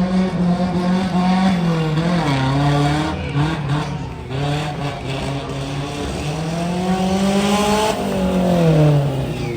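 Suzuki Vitara off-road vehicle's engine running hard under load, its revs rising and falling: it climbs about seven seconds in, then drops sharply just before the end.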